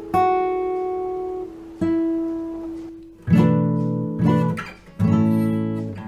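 Background music on acoustic guitar: two single plucked notes left to ring, then strummed chords about a second apart from a little past halfway.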